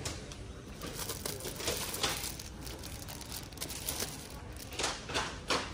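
Plastic or paper packaging crinkling and rustling as items are handled, in short irregular bursts, a few louder ones near the end.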